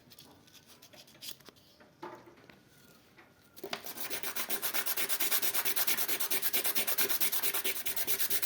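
Rapid back-and-forth hand sanding and scrubbing of a greasy blender drive part to clean it, starting a little under four seconds in as a fast, even run of scraping strokes, several a second; before that, only faint handling sounds.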